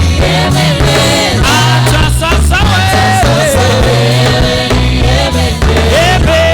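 Gospel praise song played by a church band, with a steady bass line under a sung melody.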